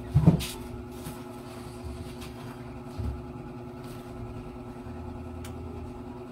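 A steady low mechanical hum, like a small motor running, with a sharp low thump just after the start and a duller one about three seconds in.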